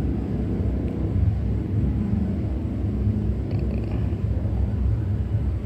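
A steady low rumble of background noise, with no clear event in it.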